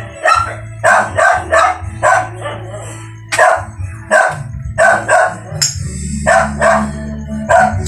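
A dog barking over and over, about two barks a second, over a steady low hum.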